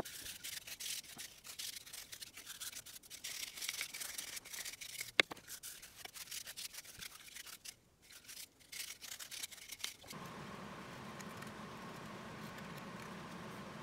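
Hand-sanding CNC-cut plywood parts: quick, scratchy rubbing strokes of abrasive on wood, with one sharp click about five seconds in. About ten seconds in, the sanding stops and a steady, even hum takes over.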